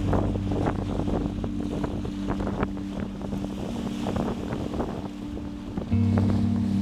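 Sea waves splashing and washing at the shore, with wind buffeting the microphone. Under them run sustained low musical notes that change to new notes about six seconds in.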